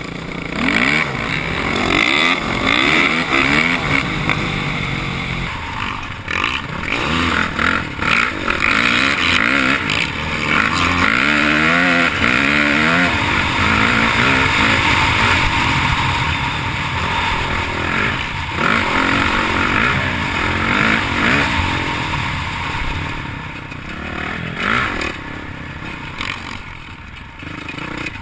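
Dirt bike engine heard from the rider's helmet camera, revving up and down through the gears as the bike rides along, with a loud rushing noise over it. The revving is strongest in the first half and eases off near the end.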